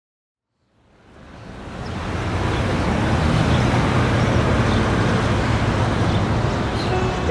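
Steady low rumble of distant road traffic, fading in from silence over the first two seconds.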